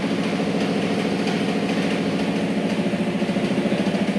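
An engine idling steadily, a low drone with a fast, even pulse.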